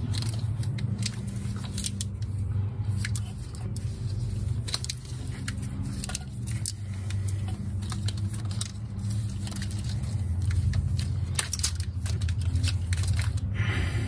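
Tape being pulled off the roll and wrapped around a car wiring harness, with crackly tearing and rustling and frequent light clicks of the wires being handled, over a steady low hum.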